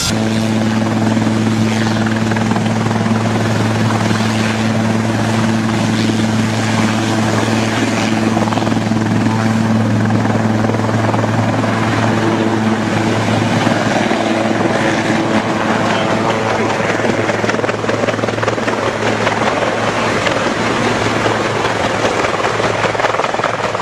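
Helicopter running loud and steady, a low even hum under dense rotor and engine noise; the hum fades about fourteen seconds in while the noise carries on.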